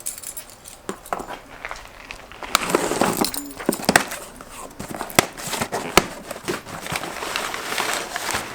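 Box and packaging being opened and handled: rustling and crinkling with irregular sharp clicks and knocks.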